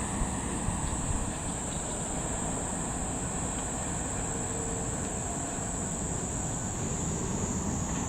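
A steady, high-pitched insect chorus drones without a break over a low, even rumble of background noise.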